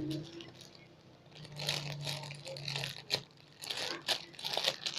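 Plastic crinkling and scraping in irregular bursts as a squishy toy in its plastic packaging is handled.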